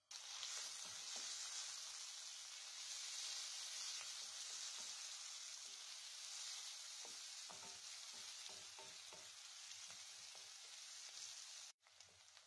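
Sliced onions sizzling in hot oil in a metal pot, the sizzle starting suddenly. A wooden spoon scrapes and knocks against the pot as the onions are stirred, most often in the second half. The sizzle cuts out for a moment near the end and comes back quieter.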